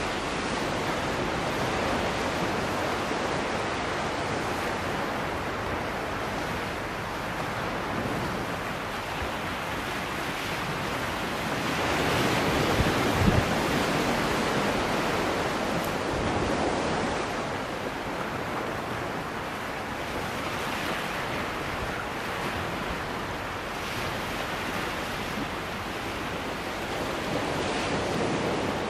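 Sea waves washing against shoreline rocks: a steady rush that swells and eases, loudest about halfway through.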